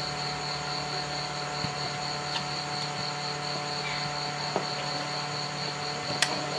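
A steady low electrical hum with a faint pulsing high whine, and a few small sharp clicks, the sort made by plastic parts of a power strip and its switch being handled.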